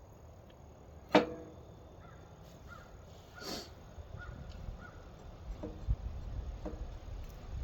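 A single sharp metal clank with a short ringing tail about a second in, then a brief scraping rush and a few lighter knocks during repair work on a high-striker.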